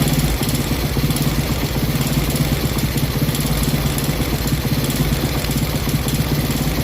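Honda Biz 125 single-cylinder four-stroke engine idling steadily, with a fast, even pulsing.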